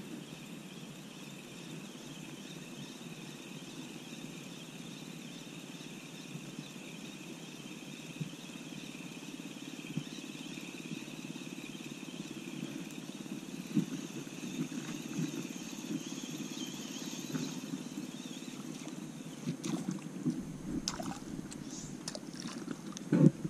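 Steady outdoor wind-and-water noise with a faint, even high hum above it. A few sharp clicks and knocks come near the end.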